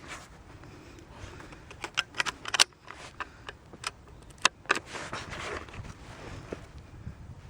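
A string of sharp metallic clicks and rattles from handling a bolt-action .22 LR rifle. The clicks come in a quick cluster about two seconds in, the loudest at about two and a half seconds, with a few more around four and a half seconds.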